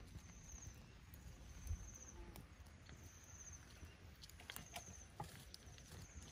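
Quiet outdoor ambience with a low steady rumble and a faint high chirp repeating about once a second. Past the middle come a few light clicks as grilled crabs and snail shells are moved on a wire grill basket.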